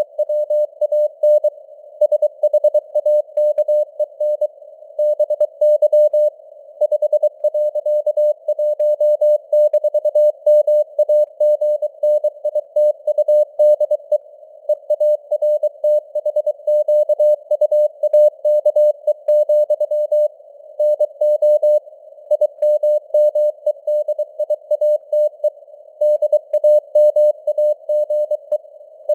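Morse code (CW) sent at 23 words per minute: a single steady-pitched tone keyed on and off in dots and dashes, over a faint hiss of simulated radio noise.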